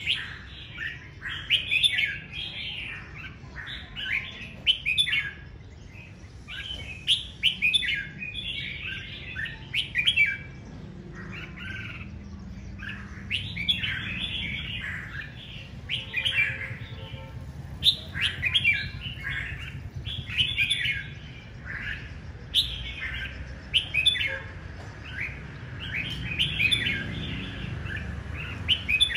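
A caged songbird singing in short bursts of quick chirping phrases, repeated with brief pauses, over a low background rumble.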